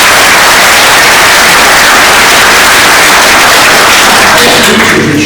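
Loud, even rushing noise like static, holding steady and then fading about four and a half seconds in as steady tones take over.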